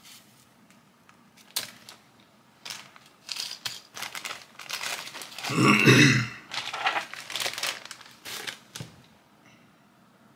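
Crinkling and rustling of packaging and small accessories being handled on a desk, in short irregular bursts, with the loudest burst about six seconds in.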